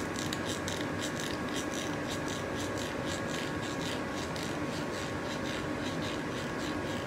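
Rhythmic scratchy rubbing in fast, even strokes, over a faint steady hum.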